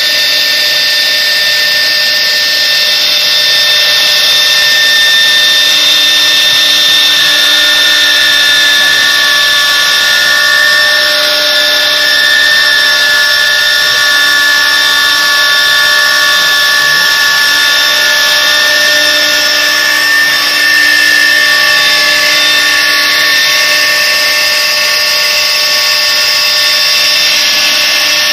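The two spindles of a twin-head CNC router run at high speed, cutting grooves into a board. The sound is a steady high whine made of several held tones, with more tones joining about a quarter of the way in and fading near the end.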